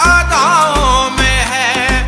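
Hindi song remix playing: a wavering, ornamented melody over a heavy repeating bass beat.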